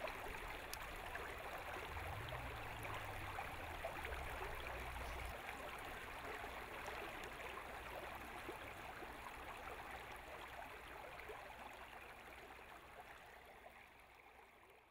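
Water running in a small stream, a steady babbling rush that slowly fades out toward the end. A low hum sits under it for about the first five seconds.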